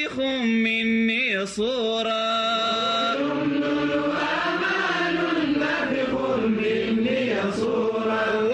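Male voice singing an Arabic Sufi inshad, drawing out long held, ornamented notes with vibrato and sliding from pitch to pitch without a break.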